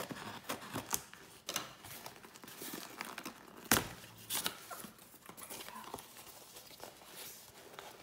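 Cardboard mailing box being pulled open by hand: tape tearing and cardboard rustling and crinkling, with scattered small clicks and one sharp knock just under four seconds in.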